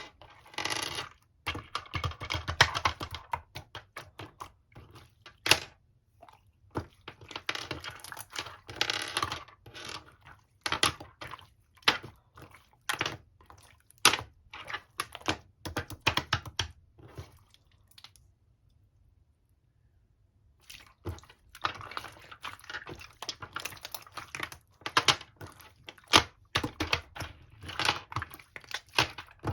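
Slime being squeezed and pressed by hand, giving dense runs of sharp clicks and pops, with a break of about two seconds about two-thirds of the way through.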